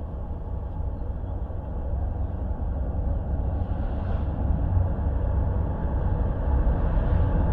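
Approaching Norfolk Southern freight train's diesel locomotives: a low engine rumble that grows steadily louder as the lead units come closer.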